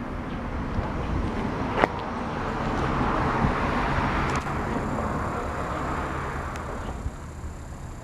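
A car passing by: road and engine noise that swells over a few seconds and fades away, with a sharp click about two seconds in.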